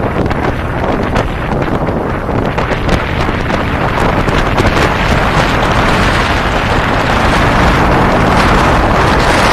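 Wind buffeting the microphone of a camera riding on a moving cruiser motorcycle, over the bike's engine running at road speed. The rush grows louder and steadier over the last few seconds.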